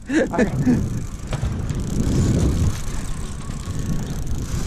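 Boat's engine idling, a steady low rumble, with a short bit of voice in the first second.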